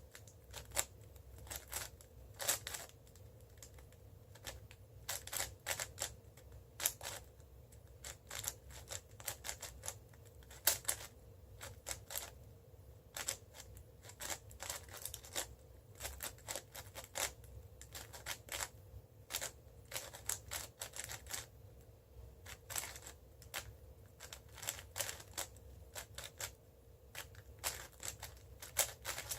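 Cubicle WuShuang M 5x5 speed cube clicking and clacking as its layers are turned mid-solve, in quick irregular runs of moves with short pauses between.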